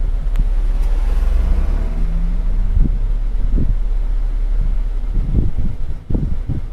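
Wind buffeting the microphone with a heavy low rumble, breaking into irregular thumps near the end.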